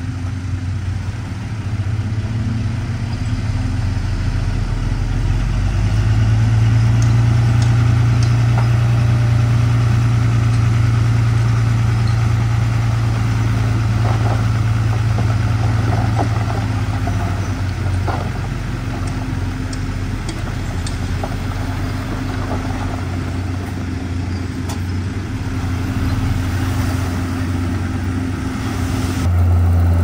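Heavy diesel engine of earthmoving machinery running with a low drone, working harder a few seconds in and easing off about halfway through.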